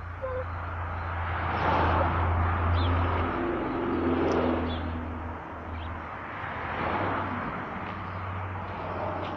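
Road traffic: a vehicle passing about two seconds in and another about seven seconds in, over a steady low engine hum.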